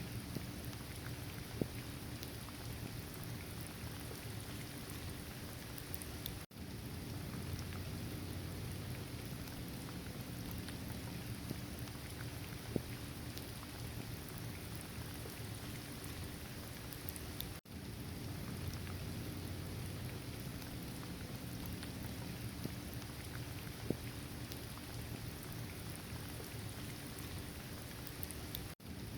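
Steady rain falling, with scattered louder drop ticks. The sound cuts out for an instant three times: about a fifth of the way in, just past halfway, and at the very end.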